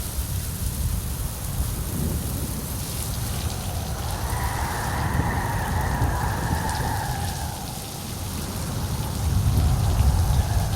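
Steady rain falling during a thunderstorm, with a low rolling rumble of thunder underneath that swells loudest near the end. For a few seconds in the middle a brighter rushing sound rises over the rain.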